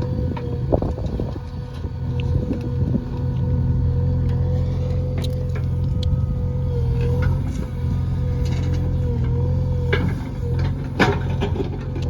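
JCB backhoe loader's diesel engine running steadily with a constant whine, rising in strength about three seconds in and easing near the end. Scattered clanks and knocks, the loudest about eleven seconds in.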